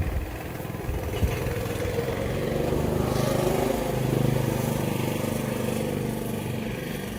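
Small engine of a kids' motorized bike running, growing louder to a peak about four seconds in and then easing off as it rides past.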